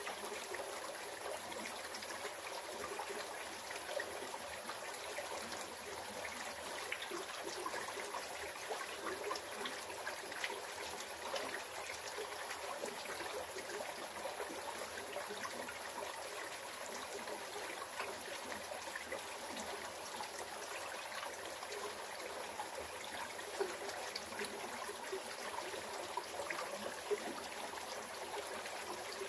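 Small rocky creek babbling and trickling steadily.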